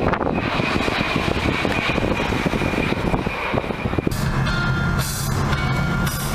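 Fighter jet flying past: a loud, dense jet-engine rumble with a faint steady whine over it. About four seconds in it gives way to a steadier low drone with held higher tones.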